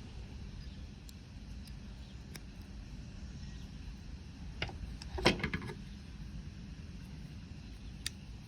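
Small metal screwdriver bits and adapter of a multitool being handled: a few light clicks and one brief metallic clink about five seconds in, over a steady low hum.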